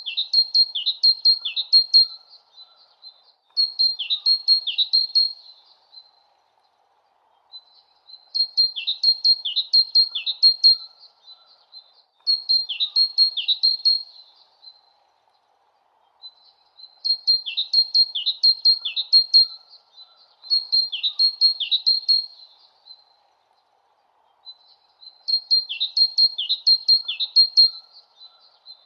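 A songbird chirping a high, quick phrase of trilled notes with fast downward-sweeping chirps. The phrases come in pairs with short gaps, and the same pattern repeats about every eight seconds, like a looped recording. A faint steady hiss lies underneath.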